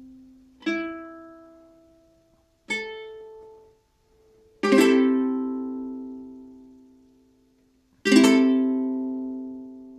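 Outdoor Ukulele soprano, a polycarbonate-bodied ukulele fitted with Southcoast strings, strummed one chord at a time: four chords, each left to ring out and fade, the last two struck harder.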